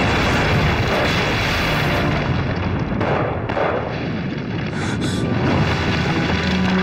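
Battle sound effects: a continuous din of explosions and booms from shelling, with a film score running underneath.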